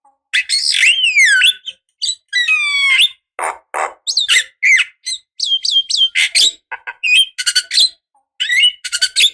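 Javan myna singing in full voice: a fast, varied run of harsh squawks, sliding whistles and short chattering notes, broken by brief gaps.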